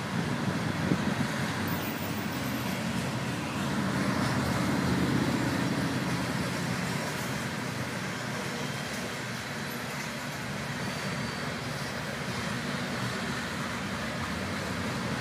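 Freight cars of a Union Pacific train rolling across a railway overpass: a steady rumble of wheels on rail, louder for a couple of seconds about four seconds in.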